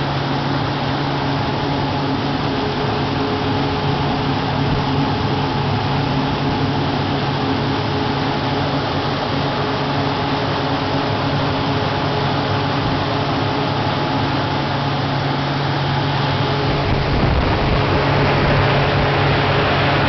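Large mechanical fan running steadily to blow a 70 km/h wind, a rushing of air over a steady motor hum. It grows a little louder, with more low rumble, near the end.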